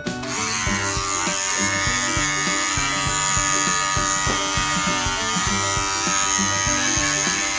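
Electric dog-grooming trimmer switched on just after the start and running with a steady buzz, over background music with a steady beat.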